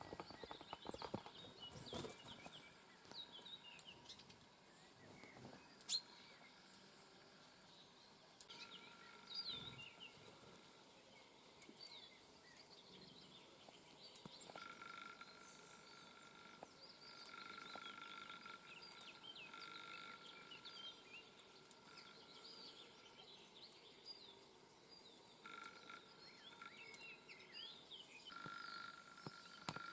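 Faint chirps and short calls from small songbirds at a feeder, scattered throughout. A steady high hum comes and goes in the second half, and there is a sharp click about six seconds in.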